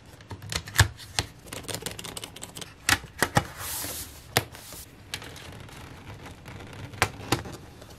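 Irregular clicks, taps and light knocks of a MacBook Air being put back together by hand: the battery, the aluminium bottom cover and a clear plastic snap-on shell handled and pressed into place, with a brief scraping rustle about halfway through.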